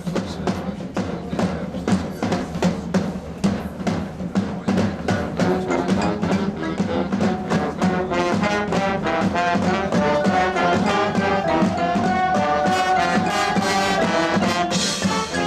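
High school marching band playing: drumline strokes at first, then the brass section comes in with sustained chords that build, ending on a long held note as the drums pick up again.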